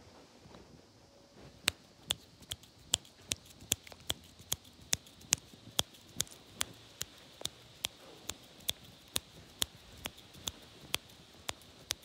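A sharp click repeated evenly, about two and a half times a second, starting a second and a half in and carrying on steadily.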